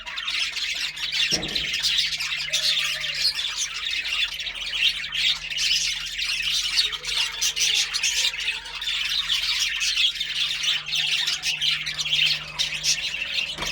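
Budgerigars chattering and chirping continuously in a dense, overlapping warble, over a faint steady low hum. A single low knock sounds about a second and a half in.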